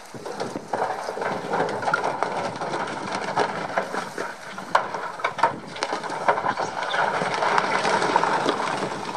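A load of large boulders tipping off the raised bed of a Volvo A40 articulated dump truck, grinding, knocking against each other and crashing into the sea. It is a dense run of rock impacts over a rumble that starts suddenly right at the beginning and keeps going.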